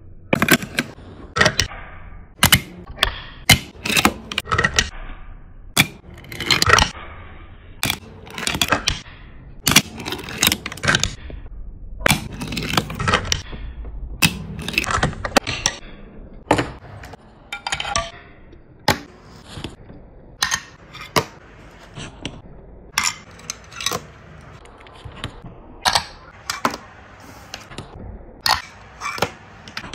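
Fingerboard tricks: the little board's tail pops and the board lands with sharp clacks on a hard tabletop and ledge, dozens of times, with short stretches of its tiny wheels rolling across the surface in between.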